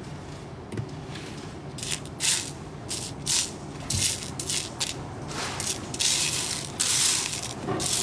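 Loose micro plastic building bricks rattling and clattering as a hand rummages through a tray of pieces, in a run of short bursts starting about two seconds in, with longer stretches of clatter near the end.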